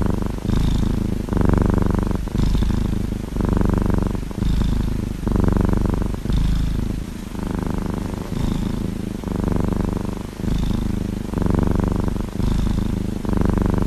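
Kitten purring loudly and close up, a steady low rumble that swells and eases about once a second with its breathing.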